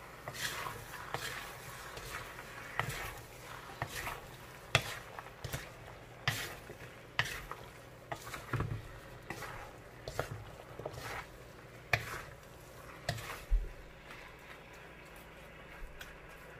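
Vegetables being stirred in a frying pan: a spatula scraping and knocking against the pan at irregular intervals, about once a second, over a steady sizzle.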